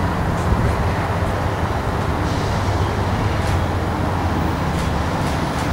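Steady low engine hum over a constant rush of distant vehicle noise, with no train passing close by.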